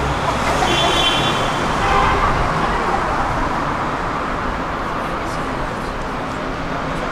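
Street traffic noise: a steady wash of passing cars and engines on a busy city street, with a brief high-pitched tone about a second in.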